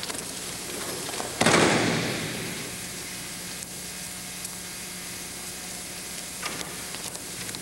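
A body slamming onto the mat in an aikido breakfall about a second and a half in: a sudden hard slap that echoes through the gym and fades over about a second. After it, a steady low hum and hiss with a few faint knocks.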